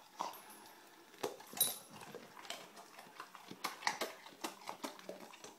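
Airedale terrier moving about close to the microphone: scattered faint clicks at an irregular pace, with a couple of light metallic clinks early on.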